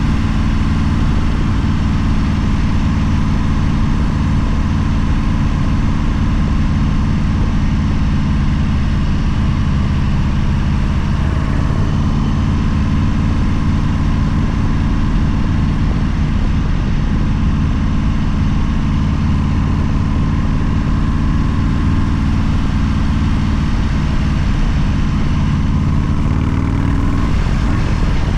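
Motorcycle engine running steadily, a loud, even low drone with no break in it.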